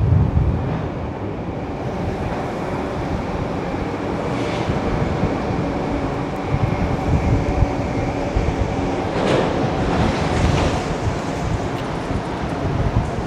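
Strong gusty wind buffeting the microphone: a heavy, uneven low rumble over steady rushing noise, with a faint steady hum in the background.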